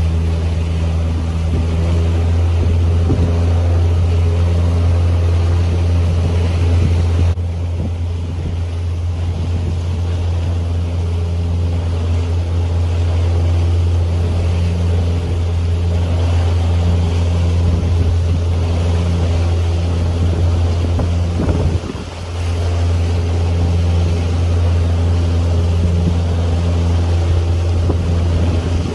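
A motorboat's engine running steadily close by, a low drone with wind buffeting the microphone and water washing past the hull. The engine eases off for a moment about three quarters of the way through.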